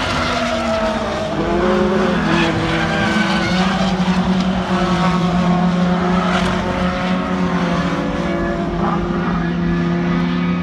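Several racing car engines running hard on the circuit, their notes overlapping, with one held steady from about a second in.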